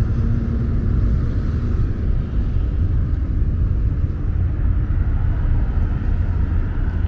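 Steady low rumble of road traffic, with a faint engine hum through the first few seconds.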